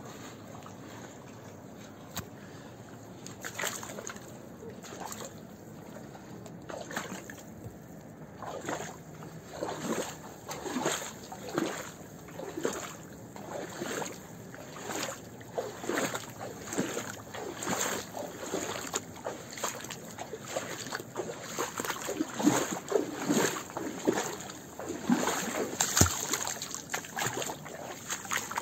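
Footsteps of a hiker walking at a steady pace, about one step a second, growing louder in the second half.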